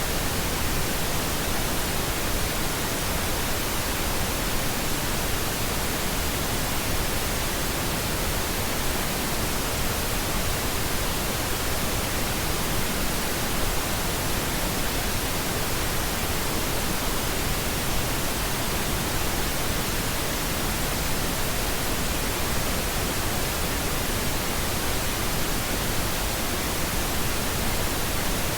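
Steady pink noise: an even, unchanging hiss spread across all pitches, with more weight in the lows than white noise.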